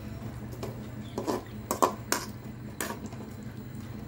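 Metal ladle knocking and scraping against an aluminium kadai while stirring chicken in watery gravy: about six irregular sharp clinks, the loudest a little under two seconds in. A steady low hum runs underneath.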